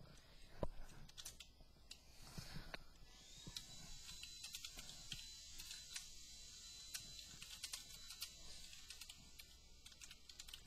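Typing on a computer keyboard: faint, irregular key clicks, several a second, over a faint steady hiss.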